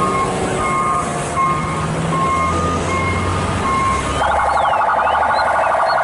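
Military police car siren in a high-low two-tone mode, switching about four seconds in to a fast pulsing warble, over the rumble of vehicle engines.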